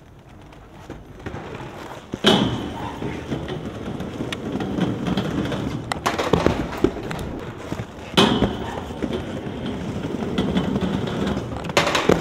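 Skateboard wheels rolling over concrete paving, with sharp board impacts about two seconds in, around eight seconds and near the end. Clattering knocks between them as the board rides along the top rail of a metal crowd barrier.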